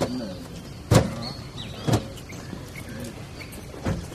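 Three dull thumps: the loudest about a second in, another a second later and a third near the end, with birds chirping.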